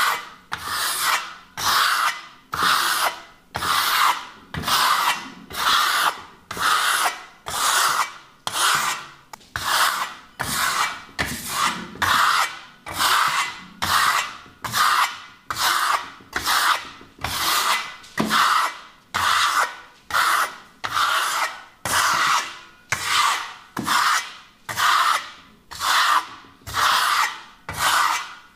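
Steel trowel scraping across partly set architectural concrete plaster in steady, even strokes, a little more than one a second. This is the final smoothing pass, done once the concrete has begun to dry, that gives the smooth-wall finish.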